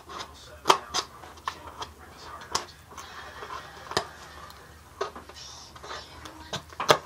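Handling noise from a duct-tape-covered lipstick holder being turned over in the hands: irregular sharp clicks and taps, about nine of them, with two louder knocks about a second in and near the end.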